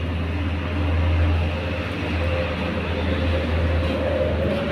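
A motor engine running steadily, a low rumble with a faint higher tone that rises slightly near the end.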